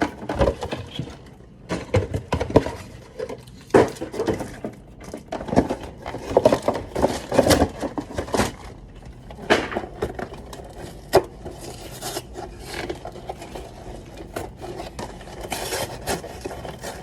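Containers and kitchen items being handled and set down: irregular knocks, clatters and scrapes, with a few sharper clacks.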